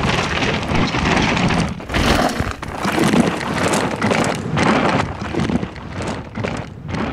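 Mountain bike ridden fast down a dirt forest trail: tyres rolling and scraping over loose soil, the noise swelling and dipping as the bike passes close to the camera.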